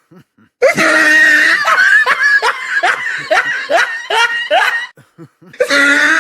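Recorded laugh sound effect. A high-pitched laugh starts a little over half a second in with a drawn-out note, breaks into a run of short bursts about three a second, then stops. A second laugh starts near the end.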